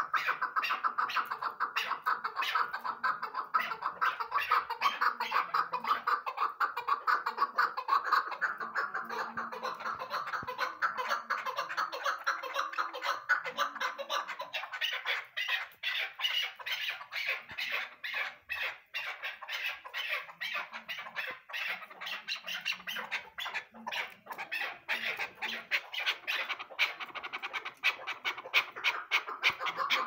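Caged chukar partridges calling: a fast, unbroken run of short repeated chuck notes that thins a little about halfway through, then picks up again.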